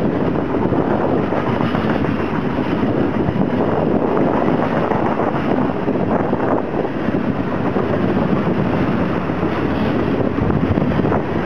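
Mixed freight train rolling past at speed: a steady, loud rumble and rush of wheels on rail, with wind buffeting the microphone.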